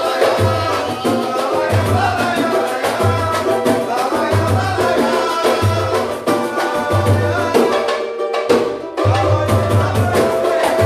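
Samba music played by a band: a deep bass beat repeating steadily under dense shaker and hand-drum percussion and a melody line. The music thins out briefly about eight seconds in, then comes back.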